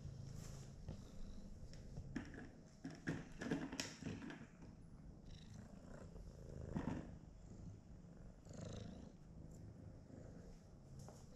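A domestic cat purring close to the microphone: a faint, steady low rumble, with scattered scuffs and clicks, most of them two to four seconds in and again around seven seconds.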